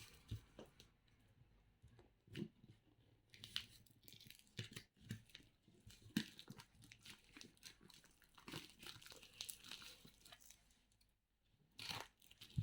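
Parcel packaging being torn and crinkled open by hand: faint, irregular rips, rustles and crackles.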